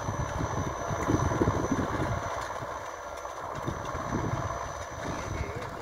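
Tractor engine running at a distance while pulling a manure spreader, growing fainter, with wind rumbling on the microphone.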